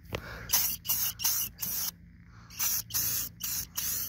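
Aerosol spray-paint can sprayed in about ten short hissing bursts, with a pause around two seconds in, touching up chipped paint.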